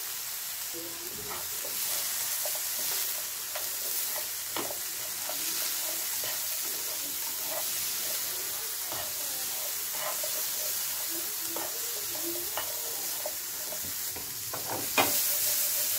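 Chickpeas sizzling in oil in a frying pan while a spatula stirs them, with a steady hiss and scattered scrapes and taps of the spatula against the pan. A louder knock comes near the end.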